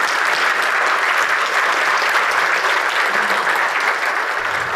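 Audience of several dozen people applauding, a steady dense clapping.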